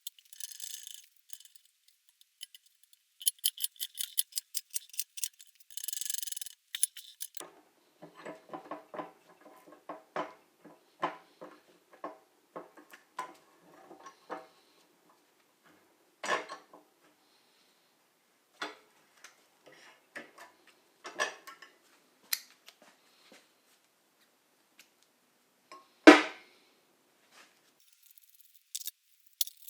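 Metal tools and parts being handled on a workbench: a quick run of sharp ticks, then a series of light knocks and clinks, scattered clicks, and one louder knock near the end.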